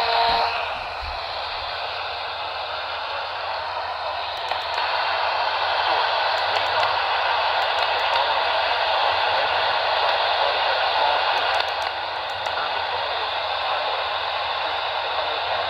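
AM radio receiver hissing with static and no station audible. A short louder burst comes at the very start, and the static grows louder about four and a half seconds in.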